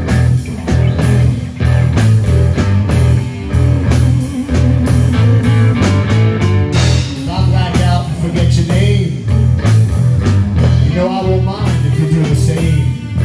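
Live garage rock band playing an instrumental passage between vocal lines: electric guitars, electric bass and drum kit driving a steady beat. In the second half a lead electric guitar plays bending blues fills over it.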